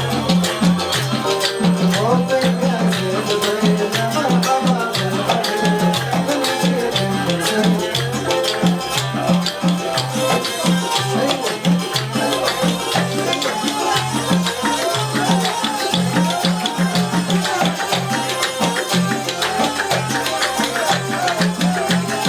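Arabic band music playing with a steady, driving percussion beat and a melodic line over it.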